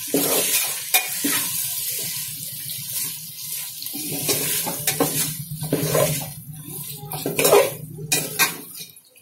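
A ladle stirring chicken pieces in masala gravy around a metal pot, with irregular scrapes and clicks against the pot, while the gravy sizzles in the hot oil.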